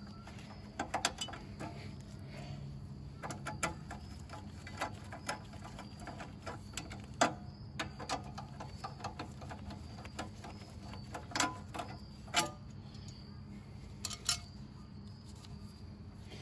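Scattered light metal clicks and taps from hand tools and small bolts being handled while unbolting the carburetor and fuel tank from a small engine, over a steady low hum.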